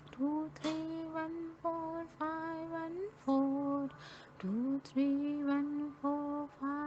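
A woman's voice chanting the number sequence "two, three, one, four, five, one, four" in a slow sing-song tune, one held note per number, the sequence repeating like a mantra.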